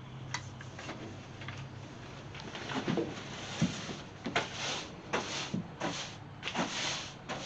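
Push broom sweeping sawdust across a workshop floor in a run of brisk, scratchy strokes, about one every 0.7 seconds, starting a couple of seconds in after a few light clicks.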